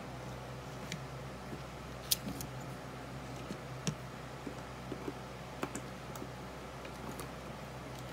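Scattered light clicks and taps as a plastic relay module and its wires are handled on a work mat, over a steady low hum.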